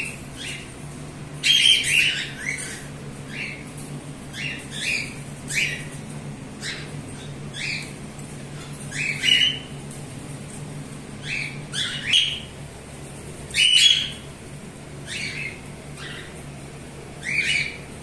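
Cockatiels calling: short, repeated chirps and squawks every second or so, with louder bursts about a second and a half in and again near fourteen seconds. A faint steady low hum runs underneath.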